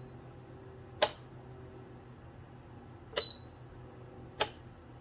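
Buttons pressed on a space heater's control panel: three sharp clicks, the second one with a short high beep, over a low steady hum.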